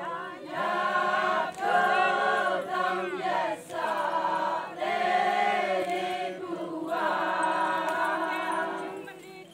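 A group of women singing a Konyak Naga folk chant together, in about five long held phrases with short breaks between them, over a steady low sustained note.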